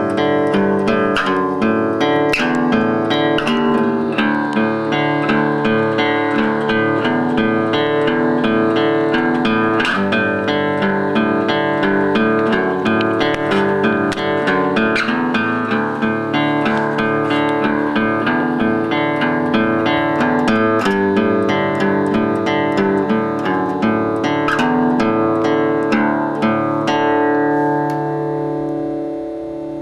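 Guitar music: a steady run of quickly plucked notes, fading out near the end.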